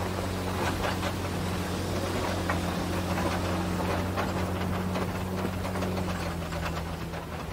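Pickup truck engine running at a steady pitch while the truck drives up a dirt trail, with tyre noise on the gravel and frequent small clicks and rattles. The engine note drops slightly near the end.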